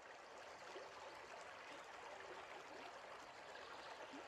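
Faint, steady rushing of running water.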